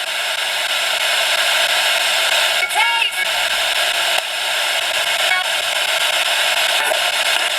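FM radio static: a steady loud hiss from a radio tuned between stations, with a brief snatch of a station's audio about three seconds in.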